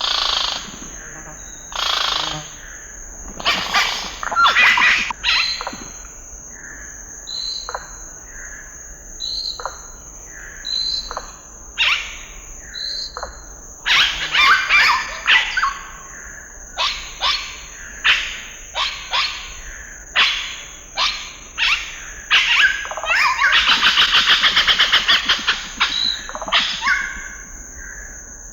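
Amazon rainforest birds calling one after another: sharp falling calls, short repeated whistled notes, and a fast rattling trill near the end. A steady high insect drone runs underneath.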